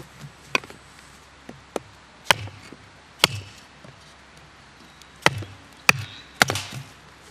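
Firewood being chopped or split with a blade for a small campfire: about seven sharp knocks at irregular intervals.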